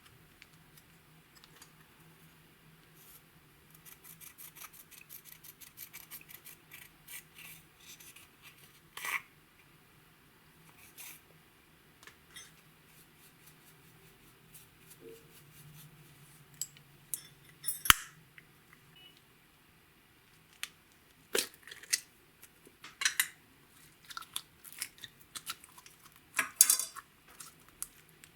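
Clear slime being squished and stretched by hand, giving sticky clicks and small pops: a quick run of them about four to eight seconds in, then scattered louder snaps.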